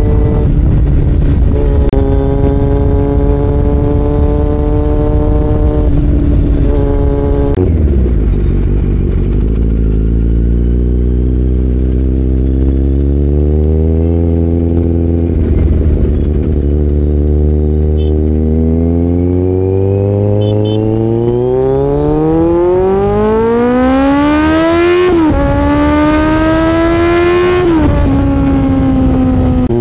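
Kawasaki Z900 inline-four motorcycle engine and exhaust under way. It runs at steady revs, drops about a third of the way in, then rises in a long climb with two quick dips as it shifts up, and settles near the end.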